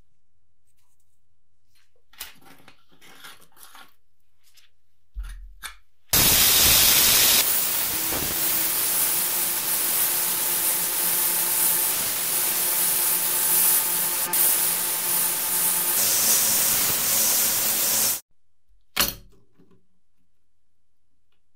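Sandblaster blasting abrasive onto a small metal plate inside a blast cabinet to strip old glue and paper: a loud, steady hiss that starts about six seconds in and cuts off sharply about twelve seconds later. Soft handling sounds come before it and a single knock follows.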